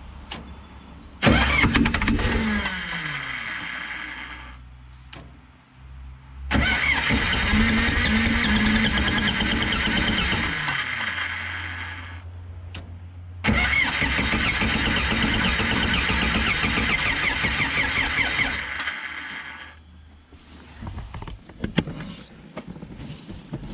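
Starter cranking the 1968 Case 580CK's 188 diesel engine over in three bursts of several seconds each, the engine turning without catching; each burst ends with the pitch sliding down as it spins to a stop. It is being cranked with fittings out of the injection pump's end cover, to check that fuel moves through the pump.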